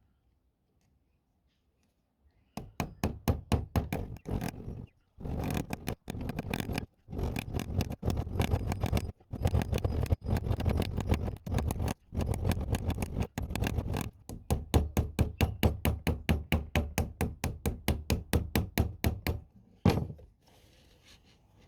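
Rapid, steady knocking, about five sharp strikes a second, in runs of a few seconds broken by short pauses. It begins a couple of seconds in and stops shortly before the end.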